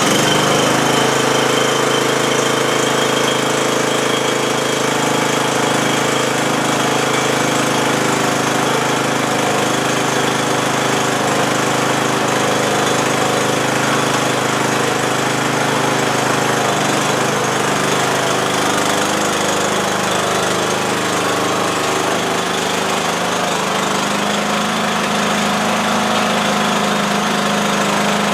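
Briggs & Stratton Intek 15.5 hp single-cylinder lawn tractor engine running steadily just after starting on choke, now that the cleaned connections and new starter solenoid let it start. Its note changes a little about two-thirds of the way through.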